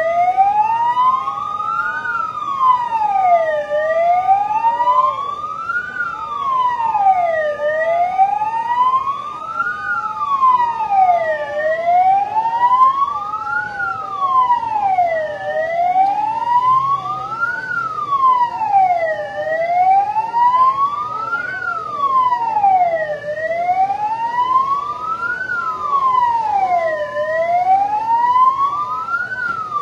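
An emergency-vehicle siren wailing, its pitch sliding slowly up and down in a steady cycle of about four seconds.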